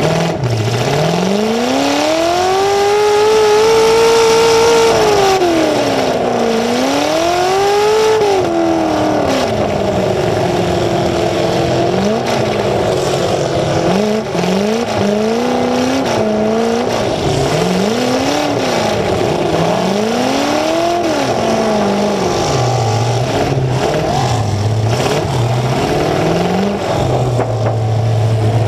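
Full-size demolition derby car's engine, heard right at its open exhaust stacks through the hood, revving hard and repeatedly in long rising and falling sweeps, with quicker swings in the middle. It drops back to a low idle near the end.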